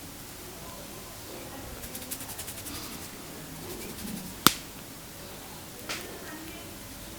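Hands at work in an Indian head massage: a quick run of small crackling clicks, then one loud sharp crack about four and a half seconds in and a fainter one about a second later.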